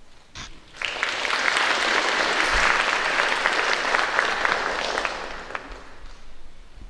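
Audience applauding, the clapping swelling in about a second in and dying away near the end.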